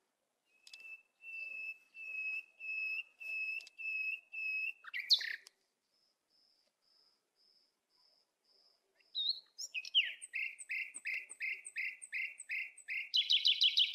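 Bird calling: a series of about eight level whistled notes about half a second apart, then after a pause a quicker run of short notes that speeds into a rapid trill near the end.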